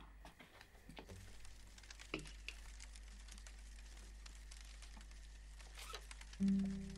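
Faint paper rustling and scattered light clicks as a sheet of paper is handled at a typewriter. Near the end a low held music note comes in suddenly and is the loudest sound.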